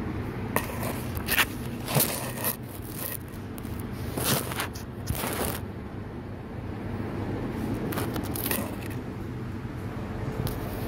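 Scrapes and clicks from hands handling the plastic parts of an opened inkjet printer, coming irregularly, with a longer scrape about five seconds in, over a steady low hum.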